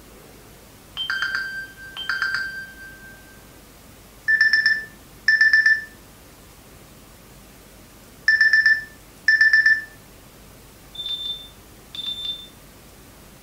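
Samsung Gear S3 Frontier smartwatch's small speaker playing ringtone previews. There are four pairs of short electronic beeps, the two beeps of each pair about a second apart. The last pair is higher-pitched.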